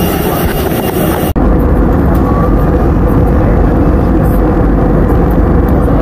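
Jet airliner cabin noise in flight: a steady low rumble of engines and rushing air. It cuts in abruptly about a second in, replacing a hissier cabin sound while passengers board.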